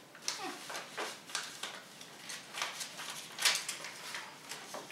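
Paper rustling and crackling as a greeting card and its envelope are handled, in a series of short scratchy sounds, the sharpest about three and a half seconds in.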